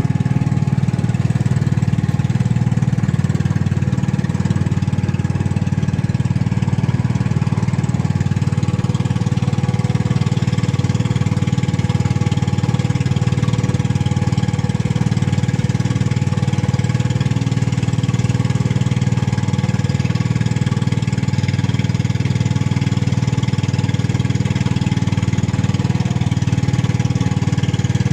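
Small engine running steadily at a constant speed, with an even pitch throughout.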